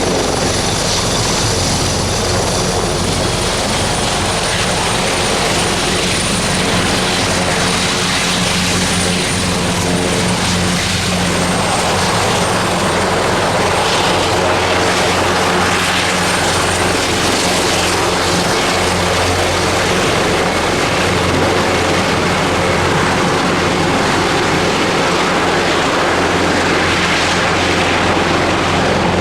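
Airbus Helicopters EC225LP Super Puma helicopter running loudly, its turboshaft engines and rotor giving a steady noise with a high turbine whine that sinks slightly in pitch over the first half.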